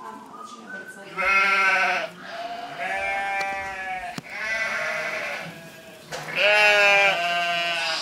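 Sheep bleating, about five long quavering bleats one after another, some overlapping. A sharp click about halfway through.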